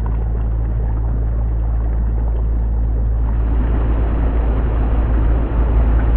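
Steady low rumble of heavy road traffic passing close by, mixed with the rushing water of the river. It grows a little louder in the second half.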